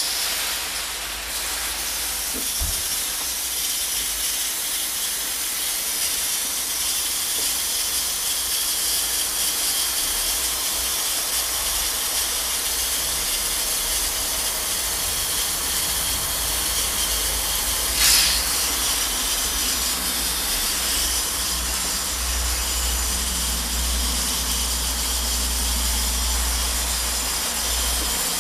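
Garden hose spray nozzle spraying water: a steady hiss that starts suddenly, with one brief louder burst about two-thirds of the way through.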